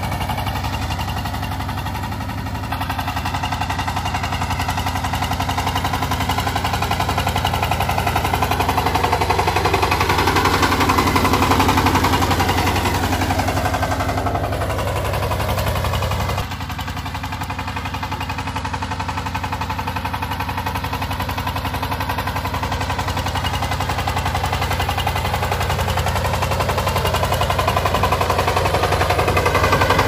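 Kirloskar Mega T15 power tiller's single-cylinder diesel engine running under load while tilling soil, a rapid, even chugging. It grows louder in the middle and again near the end, and drops suddenly about halfway through.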